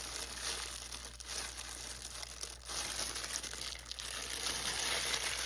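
Plastic bag crinkling and crackling irregularly as it is handled and pulled open.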